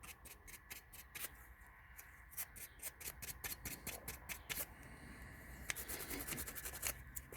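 Quick, repeated scrubbing strokes cleaning a removed rear brake caliper part by hand, a few strokes a second with a short lull about halfway through.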